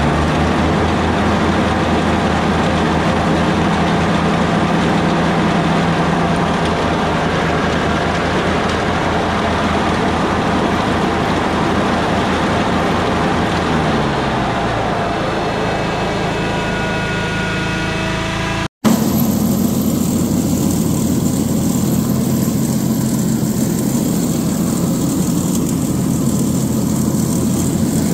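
A John Deere F932 front mower's engine running steadily at high speed with the machine standing still, then slowing down about fifteen seconds in. After an abrupt cut, the mower runs while cutting grass.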